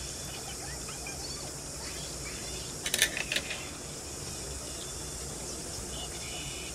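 A quick cluster of three or four sharp clicks about three seconds in, metal chopsticks knocking against the bowl, over a steady background hiss.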